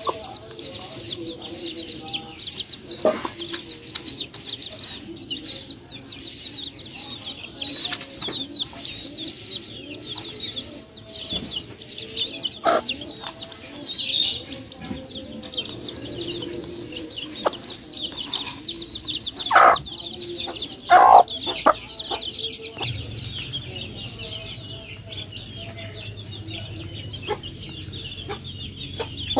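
Free-range chickens clucking, over a dense, continuous high-pitched chirping. Two louder calls stand out about two-thirds of the way in.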